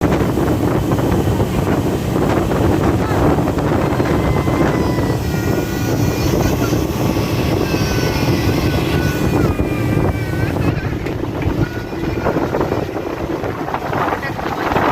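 Motorboat running at speed with heavy wind buffeting the microphone: a loud, steady rumble and rush throughout.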